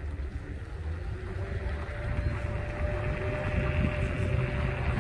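Kaabo Wolf Warrior electric scooter riding over asphalt: a low rumble of tyres and wind, with a steady motor whine coming in about a second in.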